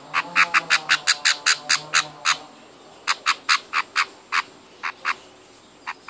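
Baby budgerigar chick giving short begging calls as it is hand-fed. There is a quick run of about a dozen calls, a brief pause, a second run of about seven, then two pairs of calls near the end.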